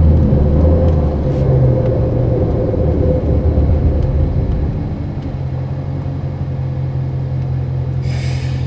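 Car on the move, heard from inside the cabin: road and engine rumble with a faint steady whine. About five seconds in, this gives way to a quieter, steadier low engine hum. A short hiss comes near the end.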